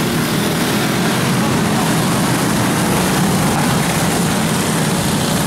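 Several racing go-kart engines running together as the pack laps the track, a steady unbroken drone.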